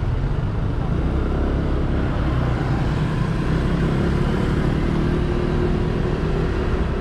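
Honda SH150i scooter's single-cylinder four-stroke engine running steadily while riding, with a constant low rumble of engine and road.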